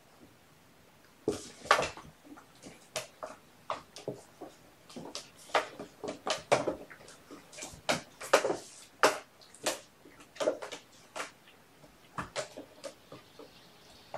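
Irregular light knocks, taps and rattles of kittens playing and clambering on toys and furniture, about two a second, starting after a second of quiet.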